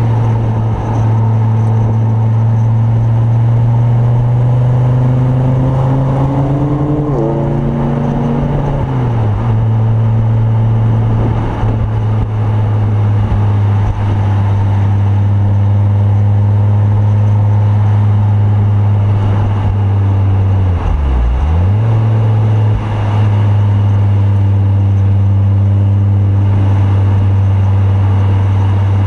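Ford Focus RS Mk2's turbocharged 2.5-litre five-cylinder engine, with a full Milltek exhaust, heard from inside the cabin while lapping a circuit. It holds a steady pitch for long stretches, drops in pitch about eight seconds in, and dips briefly and comes back up a little past twenty seconds.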